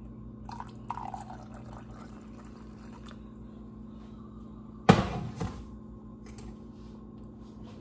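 Hot chai pouring from a stainless steel saucepan through a cheesecloth into a mug, quiet trickling and dripping over a steady hum. About five seconds in a sharp metallic clunk, followed by a smaller knock, as the pot is set back down on the stovetop.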